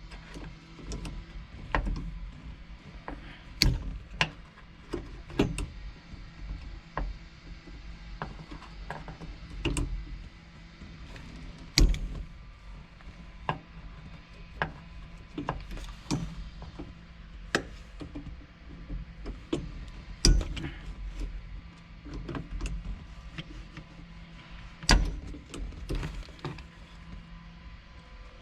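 Irregular clicks and knocks of hand tools and metal parts being worked on the shift rod coupler inside a VW Beetle's floor tunnel, with a few sharper knocks among them. A faint steady hum runs underneath.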